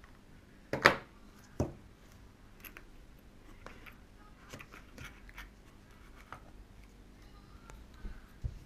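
Hands handling an iPhone 5S's cardboard box and plastic packaging pieces. A sharp click or knock about a second in is the loudest sound, with a second one shortly after. Then comes a string of light clicks and taps, and two dull thumps near the end.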